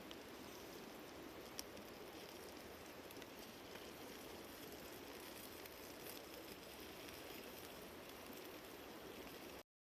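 Faint, steady outdoor background noise with a single sharp click about a second and a half in; the sound cuts off abruptly near the end.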